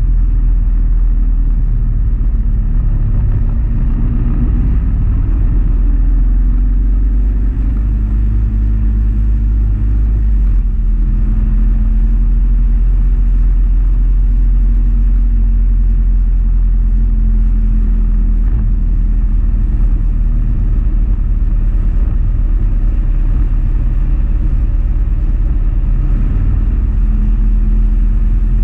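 Motorcycle engine running at a steady road speed, heard under heavy wind rumble on the microphone; the engine note rises a few seconds in, then holds steady.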